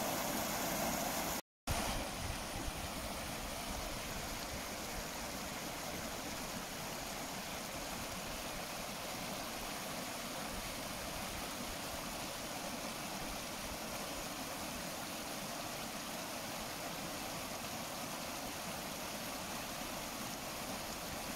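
Muddy floodwater from heavy rain running in shallow channels over gravel and around rocks in a swollen wadi: a steady rushing, broken by a brief dropout about a second and a half in.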